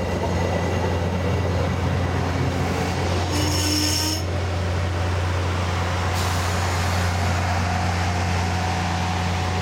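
The last coaches of a passenger train rolling past on the rails over a steady low rumble, with a brief high-pitched wheel squeal about three and a half seconds in.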